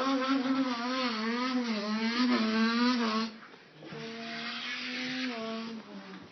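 A boy imitating an engine with his voice: a buzzing, wavering vocal engine noise for about three seconds, then after a short break a second, steadier engine drone lasting about two seconds.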